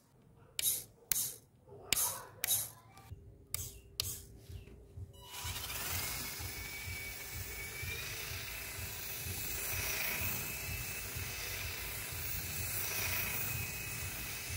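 Irregular sharp clicks for about five seconds as the radio transmitter and the homemade RC truck are switched on. Then comes a steady hiss with a high whine that rises and falls: the truck's small electric motor and gears running as it drives across concrete.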